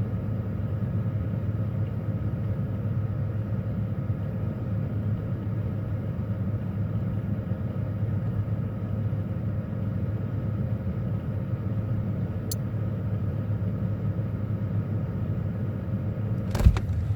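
Refrigerator running with a steady low hum, heard close up from inside the fridge. There is a sharp knock with a few clicks near the end.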